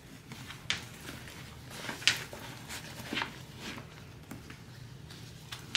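Vinyl and canvas handbag rustling and scuffing in the hands as it is pulled and pushed out into shape: a handful of soft, short scuffs a second or so apart.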